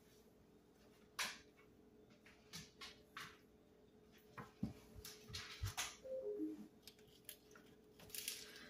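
Chef's knife cutting the stems out of Swiss chard leaves on a cutting board: scattered faint taps of the blade on the board and swishes of the leaves, busiest between about five and six and a half seconds.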